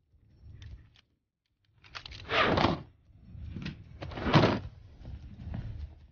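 Film soundtrack sound effects: two loud rushing noises about two seconds apart over a low rumble, with fainter noises between.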